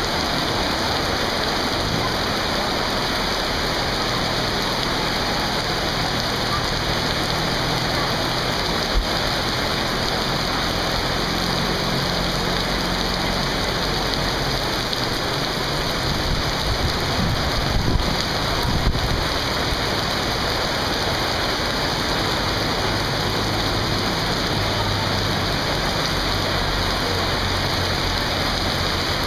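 Heavy rain falling steadily on a flooded street, with the low engine hum of vehicles driving slowly through the floodwater at times.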